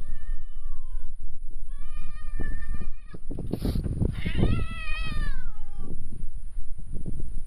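A cat meowing three times, the last call the longest, rising and then falling in pitch.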